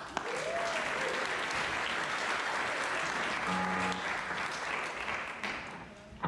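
Audience applauding, a dense steady clatter of clapping that thins out and dies down near the end.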